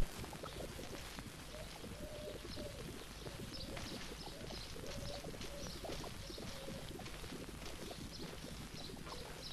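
Outdoor birdsong: scattered high chirps and short, repeated low cooing calls over a steady background hiss.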